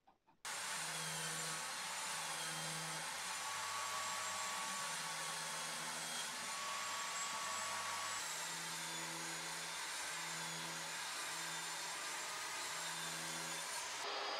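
DeWalt table saw running and ripping plywood, a steady motor whine and rush of noise that cuts in about half a second in and holds even throughout.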